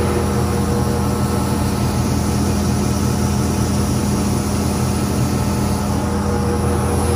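Combine harvester engine and machinery running with a steady, even drone.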